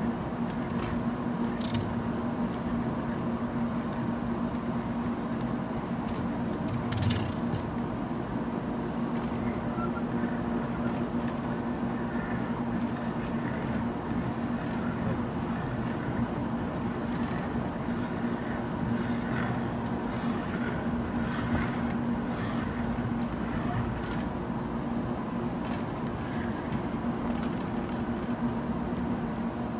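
A steady low hum in the workshop throughout, with a few light clicks and knocks of metal parts being handled, the sharpest about seven seconds in, as a scooter's driven pulley, contra spring and clutch are seated in a screw-type clutch spring compressor.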